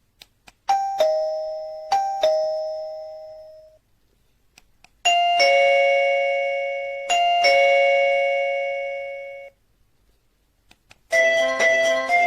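Electronic doorbell chime of the XTU wireless video doorbell, playing a falling two-note ding-dong twice in quick succession, each ring fading out over a couple of seconds. It then plays a slightly lower ding-dong, also twice. Near the end a quicker tune of many notes begins.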